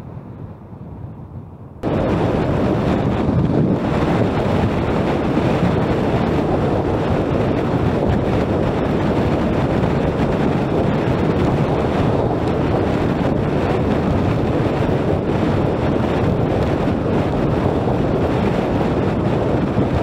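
Wind buffeting the microphone of a camera on a moving scooter at speed, a steady loud rush with road and engine noise underneath. The rush jumps suddenly louder about two seconds in.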